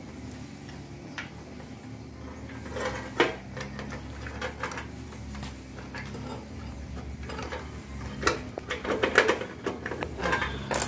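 Roller drive chain and steel sprockets clinking and rattling as the chain is handled and fitted onto the reverse gearbox's sprocket. A few sharp clinks come about three seconds in, and a busier run of clatter fills the last three seconds.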